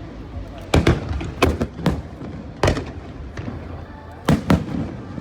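Aerial fireworks shells bursting: a series of sharp bangs in clusters, the first about a second in, more around two and three seconds, and a last pair just past four seconds.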